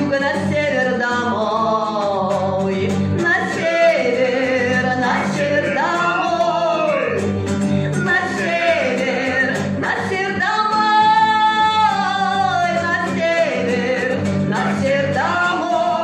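A woman sings a gliding melody into a microphone over a classical guitar accompaniment. The notes swoop up and down, and she holds one long note about two-thirds of the way through.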